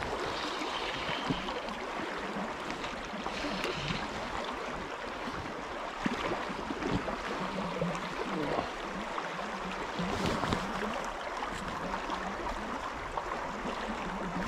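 Fast river current rushing over a broken, rippled run, a steady close-up wash of moving water.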